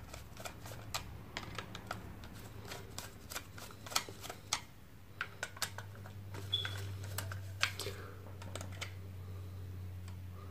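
Screwdriver undoing the terminal screws of a double plug socket and the ring-circuit wires being pulled out of the terminals: faint, scattered small clicks and ticks, a few sharper ones in the middle, over a steady low hum.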